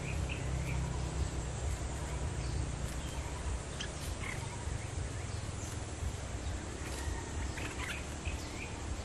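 Bulbuls giving scattered short chirping calls, several a few seconds apart, over a steady low rumble.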